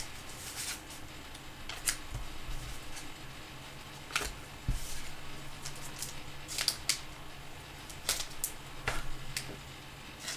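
Trading cards being handled and slid against one another, giving short sharp clicks and swishes a second or two apart over a faint low hum.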